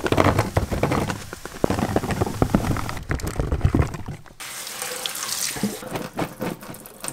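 Kitchen tap running over mushrooms in a plastic colander at a stainless steel sink, with many small knocks as the mushrooms tumble while being rinsed. About four seconds in, the knocking stops and the running water goes steadier and thinner.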